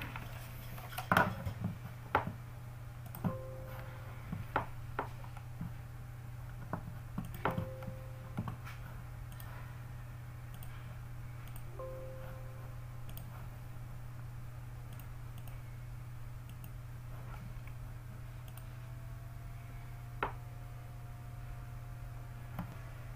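Scattered sharp clicks and taps, most of them in the first nine seconds and one more near 20 seconds in, over a steady low hum, with three brief faint tones.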